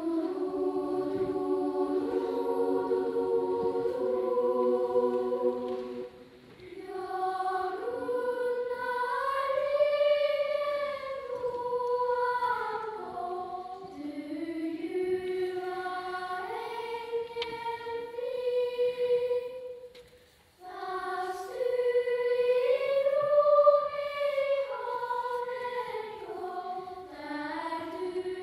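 A children's choir singing a slow melody in long held notes, phrase by phrase, with short breaths between phrases about six and twenty seconds in.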